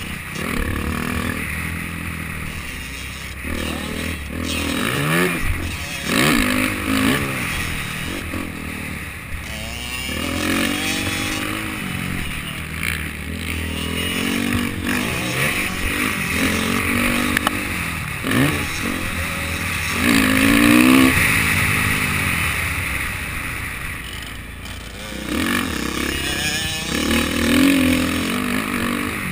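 Motocross dirt bike engine revving hard and backing off again and again while riding the track, its pitch climbing and dropping with throttle and gear changes, over steady wind noise.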